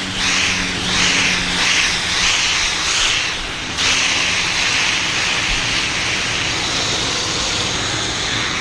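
Water jetting from a charged fire hose nozzle: a loud hiss that swells and fades about twice a second for the first few seconds, then runs steady.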